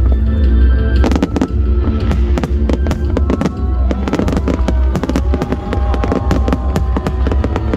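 Fireworks display going off in quick succession: many sharp bangs and crackles close together, over music playing throughout.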